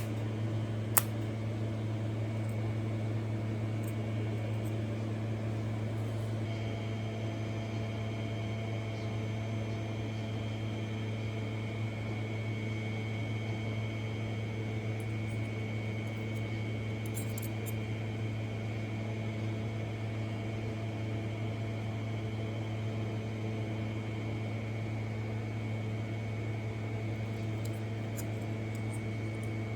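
Steady electrical machine hum with a low buzz, two short clicks at the very start, and a thin high whine that joins about six seconds in and holds steady.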